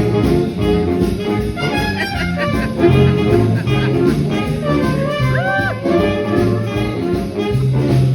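Instrumental break in a jazzy song: brass instruments playing over a moving bass line, with no singing.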